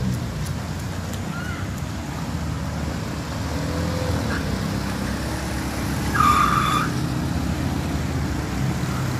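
Motor vehicles driving through a flooded street, their engines a steady low rumble, with one short horn honk about six seconds in.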